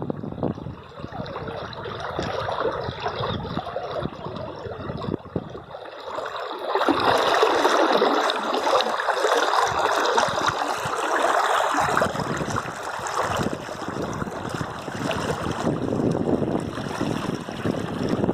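River water flowing, a continuous rush with babbling, which swells louder for about five seconds in the middle.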